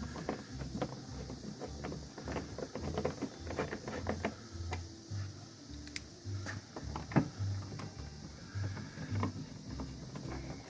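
Irregular light clicks and taps of hand tools: a 7 mm socket being worked on the door panel's fasteners, with occasional low knocks.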